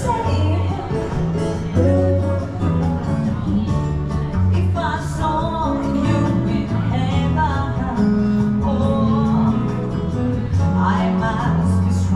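A country-style song playing: a singer over guitar and a steady bass line.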